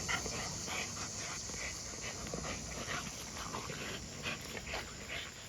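American bully dogs tugging and scuffling over a basketball, making irregular short noises with their effort and breathing.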